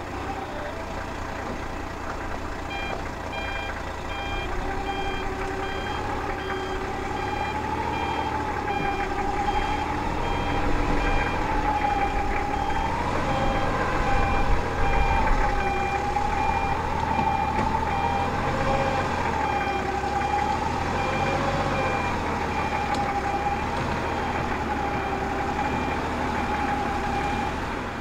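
Quest Kodiak 100's Pratt & Whitney PT6A-34 turboprop engine running on the ground, a steady whine that wavers gently up and down over a low rumble. A faint regular beeping sounds for about the first half.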